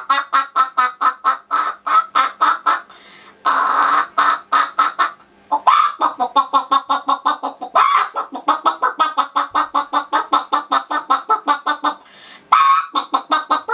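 A boy's voice imitating bird or fowl calls: fast runs of clucking squawks, several a second, broken by three short pauses.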